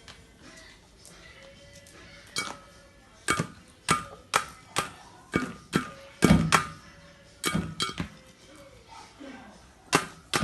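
A seagull's beak striking a cat-food bowl as it gobbles the food: a run of sharp, irregular clinking knocks, the loudest in the middle, then a short lull before a few more near the end.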